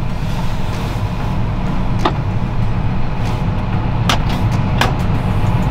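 John Deere 6195R tractor's six-cylinder diesel running steadily, heard from inside the cab as a low drone while the tractor is driven, with a few sharp clicks about two, four and five seconds in.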